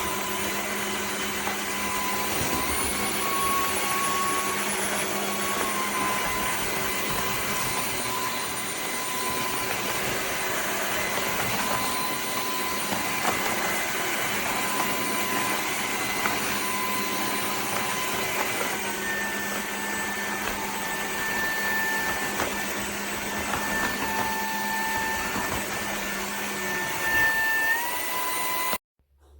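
Dreame H12S cordless wet-and-dry vacuum running steadily, its motor whine stepping up and down in pitch a few times, then cutting off abruptly near the end.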